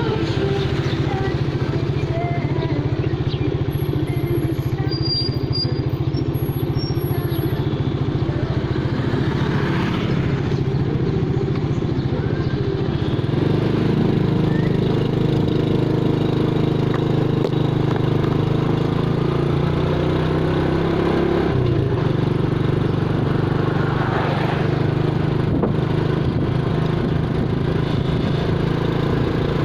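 A vehicle engine running steadily, with the level and pitch holding even throughout.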